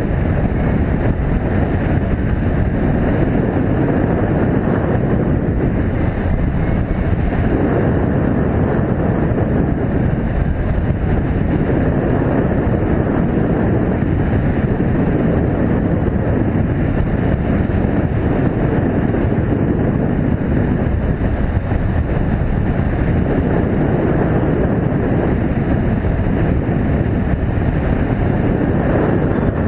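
Steady, loud rush of wind buffeting the microphone of a camera mounted on a hang glider in flight, a continuous low rumble with no other sound rising above it.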